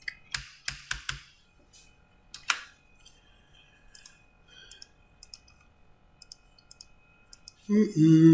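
Computer keyboard keystrokes: a quick run of key presses in the first second or so, one more a couple of seconds later, then a few faint clicks.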